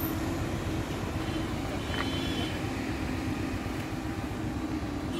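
A vehicle engine running steadily, a low rumble with an even hum. A brief faint high trill comes about two seconds in.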